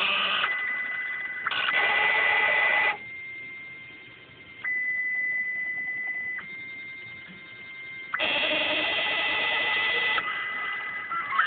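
Stepper motors of a Bluumax CNC router kit moving a pen plotter head, a steady high whine of fixed tones. The sound swells to a louder, busier whir when the axes move (about two seconds in and again about eight seconds in) and drops back to a thin hum between moves.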